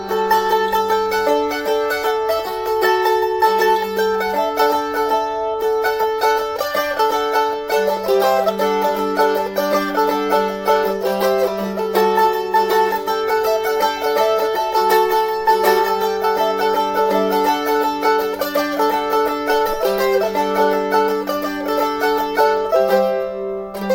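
Handmade Les Paul-style mandolin with a mango and teak body, plucked and played as a continuous tune of quick, repeated picked notes.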